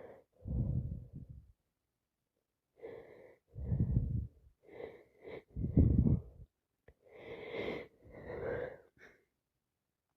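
A woman with a congested nose from a sinus infection blowing her nose forcefully three times, with wheezy breaths drawn through the nose in between. The hardest blow comes about six seconds in.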